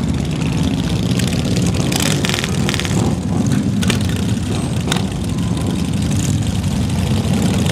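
Several large cruiser motorcycles running together, a steady low engine rumble as bikes pull away across the grass, with a few short clicks about two and five seconds in.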